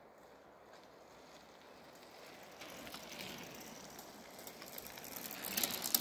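Mountain bike tyres rolling over a dirt and gravel path, growing louder as the bike approaches and passes close by. Sharp crackles near the end.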